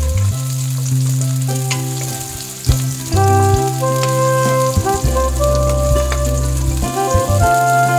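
Background music with held melody notes over a steady bass, and under it the sizzle of sliced garlic and onions frying in oil in a pan.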